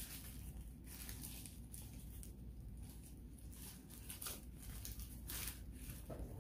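Paper sandwich wrapper crinkling and rustling as it is pulled open from around a fast-food burger, in a string of short, irregular rustles.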